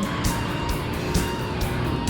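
Music with a steady drum beat, with race car engine noise faintly beneath it.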